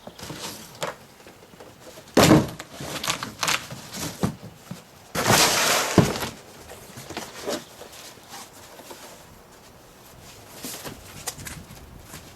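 Knocks, thumps and cardboard scraping and rustling as a large telescope shipping box is handled. There is a loud knock about two seconds in, and a second-long scraping rush that ends in a sharp knock around six seconds in, followed by lighter knocks.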